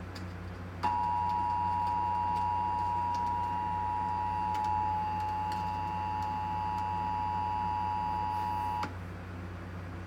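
Emergency Alert System two-tone attention signal (853 and 960 Hz sounding together), played over a radio broadcast. It starts about a second in, holds steady for about eight seconds and cuts off abruptly, ahead of a severe thunderstorm warning.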